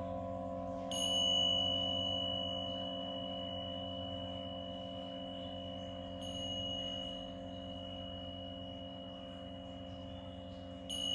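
Tingsha cymbals struck together three times, about a second in, about six seconds in and again at the very end, each strike leaving a long, clear, high ringing tone that slowly fades. Underneath, a steady low drone of several held tones continues.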